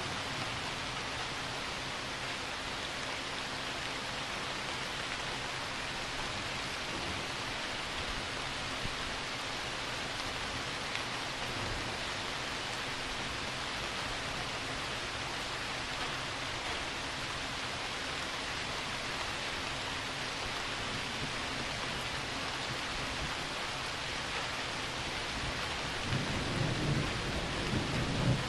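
Steady rain falling, with thunder rumbling in low and growing louder near the end.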